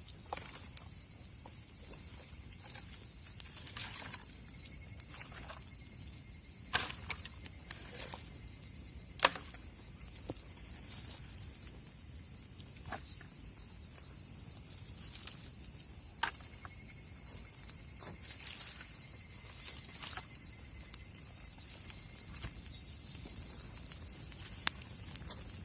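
Wood campfire crackling, with scattered sharp pops at irregular times, the loudest about nine seconds in, over a steady high-pitched insect drone.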